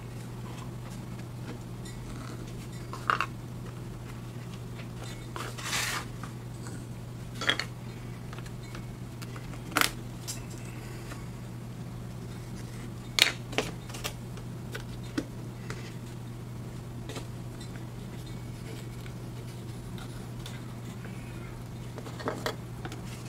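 Scattered light taps and clicks of thin laser-cut wooden pieces and a small super glue bottle being picked up and set down on a wooden tabletop, with a short scrape about six seconds in. A steady low hum underlies it.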